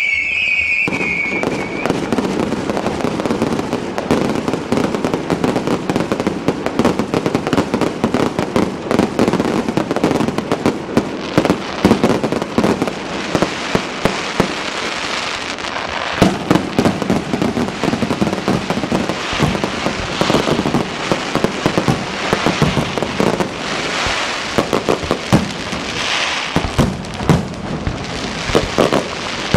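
Fireworks display: dense, continuous crackling and popping of bursting shells, with louder single bangs standing out more in the second half. A high whistle fades out in the first second or two.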